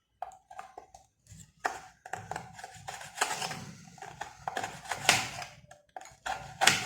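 Irregular clicks and knocks of kitchen utensils and dishes being handled, some with a short ring.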